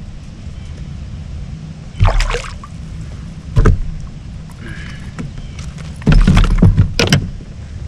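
Handling noise in a plastic fishing kayak while a freshly caught small chain pickerel is lifted from the water and held. Three loud sudden bumps: about two seconds in, near the middle, and a longer run of knocks near the end, over a steady low rumble.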